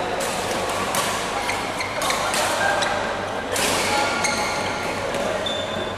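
Badminton rally: rackets striking the shuttlecock in sharp hits roughly a second apart, over the steady background noise of an indoor hall.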